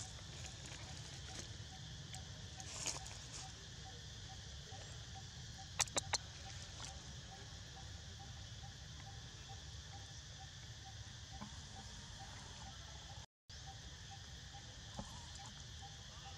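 Quiet outdoor ambience: a steady high insect hum over a low wind rumble, with a faint regular ticking about three times a second. Three sharp clicks come close together about six seconds in, and the sound cuts out briefly near the end.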